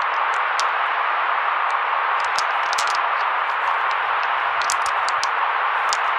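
Steady white-noise hiss, filtered so that it sits in the middle range, with scattered short crackling ticks above it.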